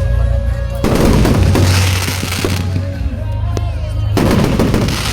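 Fireworks crackling and popping in two dense bursts, the first about a second in and the second near the end, over background music with a steady bass.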